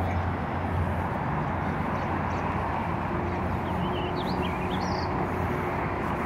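A few short, high bird chirps about halfway through, over a steady, even outdoor noise.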